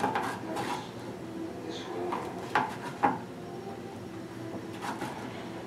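Chef's knife chopping a protein bar on a plastic cutting board: four sharp knocks of the blade striking the board, two of them close together midway.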